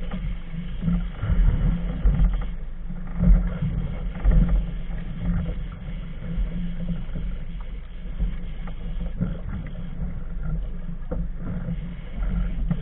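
Uneven low rumbling of wind buffeting the camera microphone on an open boat at sea, swelling and easing throughout.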